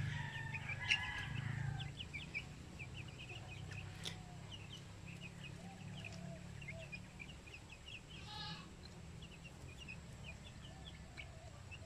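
Two-month-old silkie chickens peeping softly and repeatedly while they feed, with one louder animal call about eight seconds in. A steady low hum runs underneath.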